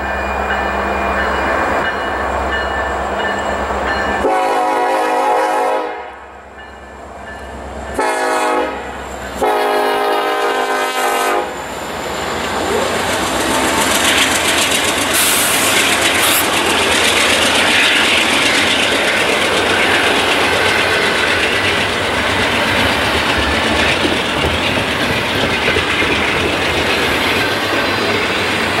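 Norfolk Southern freight train's locomotive horn blown three times, a long blast, a short one and another long one, as it nears a grade crossing. The diesel locomotives and then the double-stack intermodal cars pass close by, a loud steady rumble of engines and steel wheels on the rails with clickety-clack.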